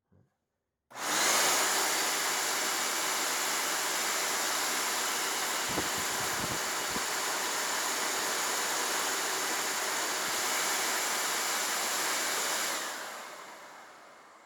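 Dirt Devil Purpose For Pets upright vacuum cleaner switched on about a second in, its motor running steadily with a few low knocks midway. Near the end it is switched off and the motor winds down.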